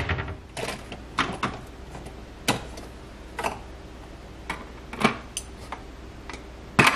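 Irregular plastic clicks and taps of a travel tumbler being set under a pod coffee maker and a coffee pod being handled, with a louder cluster of clicks near the end.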